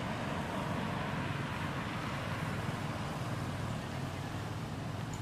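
Steady background rumble and hiss with no distinct event.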